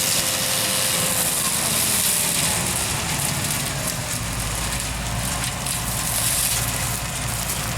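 John Deere 9400 combine running steadily, with a deeper low rumble coming in about halfway through.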